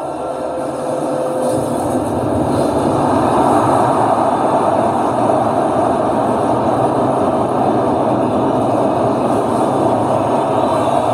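A huge stadium crowd roaring in a live concert recording, swelling over the first few seconds and then holding a steady roar.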